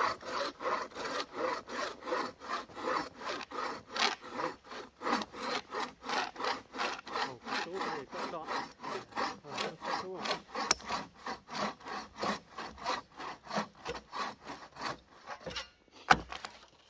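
Hand saw cutting wood in quick, even back-and-forth strokes, about three to four a second. The sawing stops near the end, followed by a single sharp knock.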